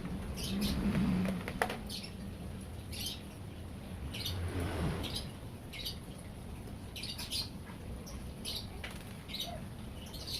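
Short high-pitched bird chirps, repeated irregularly about once a second, over a low steady hum.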